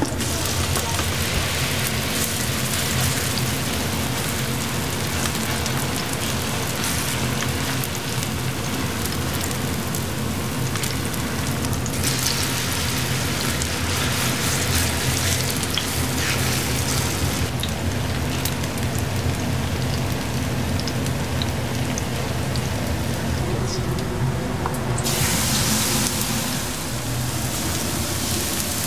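Potato-pancake mixture frying in shallow oil on a flat steel griddle: a steady, loud, rain-like sizzle over a steady low hum. The sizzle grows louder near the end.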